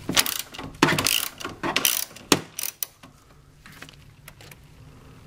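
Socket ratchet clicking in quick runs as it backs out the 14 mm bolt of the battery hold-down bracket. The clicking stops about three seconds in.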